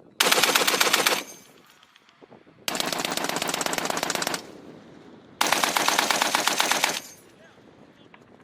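M2A1 .50-calibre heavy machine gun firing three bursts of rapid automatic fire. The first burst lasts about a second and is the loudest; the next two each last about a second and a half.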